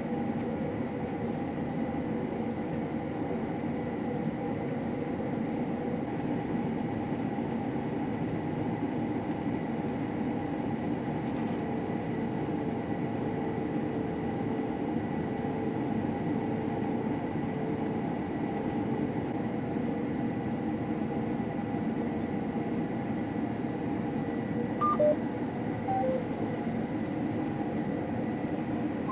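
Combine harvester running steadily through the wheat, a constant mechanical drone with steady whining tones in it. Near the end, a few short electronic beeps sound over it.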